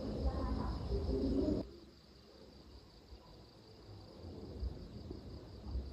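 Steady high-pitched chirring of insects, likely crickets. A louder, indistinct low noise covers the first second and a half, then cuts off abruptly.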